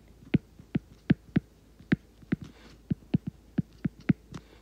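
Stylus tip tapping and clicking on a tablet's glass screen while handwriting: a rapid, uneven series of sharp little taps, about fifteen in all.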